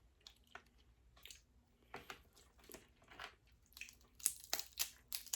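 Shellfish shells from a seafood boil being cracked and picked apart by hand close to the microphone, with eating sounds: a run of crunches and crackles that grows louder about four seconds in.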